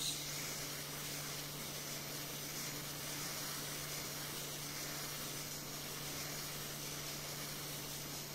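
Hot-air SMD rework station blowing a steady hiss of hot air over the SSD's controller chip to reflow its solder, with a constant low hum underneath.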